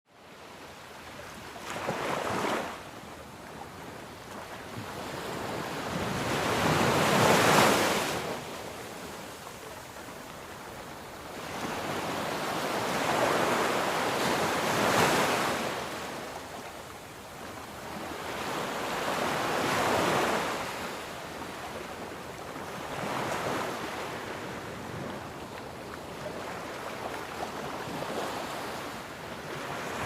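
Ocean waves breaking on a shore, the surf swelling and fading in slow surges every five or six seconds, with the biggest wave crashing about seven seconds in.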